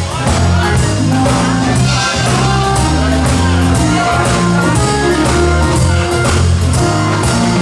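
Rock music with guitar, bass and drums playing steadily.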